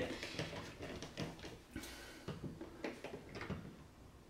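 Faint, irregular small clicks and scrapes of a screwdriver turning out the mounting screws of an old wall receptacle.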